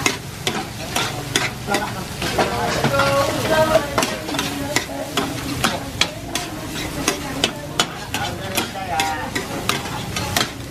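Rice being stir-fried in a large shallow steel pan, with a steady sizzle. Two metal ladles clack and scrape against the pan over and over, in quick, irregular strokes.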